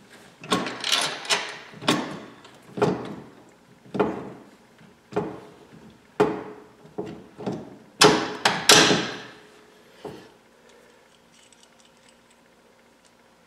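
Repeated metal knocks and scrapes as a KFI ATV winch is shifted and worked into place on its steel mount, roughly one a second with a few quick clusters, stopping about ten seconds in.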